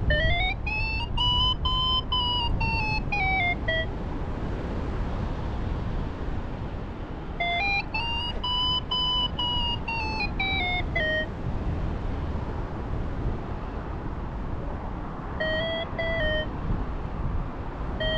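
Paragliding variometer giving its climb tone: a fast series of electronic beeps whose pitch rises and then falls, three times, the last one shorter and lower, following the glider's rate of climb in ridge lift. Steady wind noise rushes underneath.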